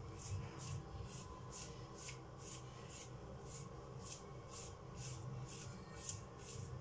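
Spatula scraping and stirring thick homemade chicken-stock paste in a stainless-steel Thermomix bowl: soft, repeated scraping strokes, about two or three a second.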